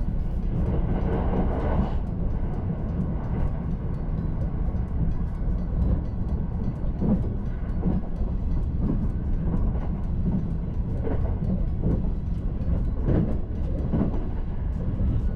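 Limited Express Azusa train running along the line, heard from inside the carriage: a steady low rumble with scattered clicks of the wheels passing over rail joints.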